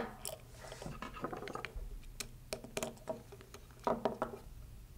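Scattered light clicks and scrapes of small steel hex keys turning socket head screws and washers as a metal servo plate is fastened to a servo, with a short cluster of louder clicks about four seconds in.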